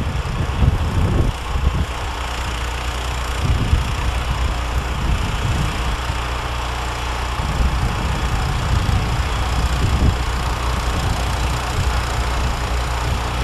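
John Deere snowblower's engine running steadily under load while the machine throws snow.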